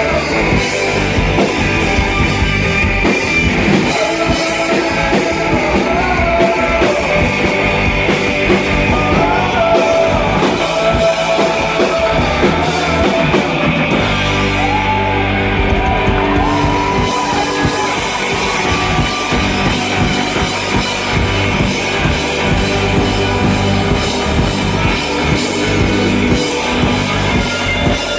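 Live rock band playing: electric guitars, bass guitar and drum kit, with a melody line bending in pitch over the top. About halfway the cymbals drop out for a few seconds while low notes ring on, then the full band comes back in.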